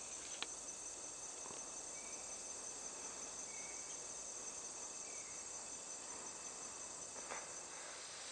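A steady, high-pitched chorus of insects in a late-summer meadow, with a couple of faint clicks.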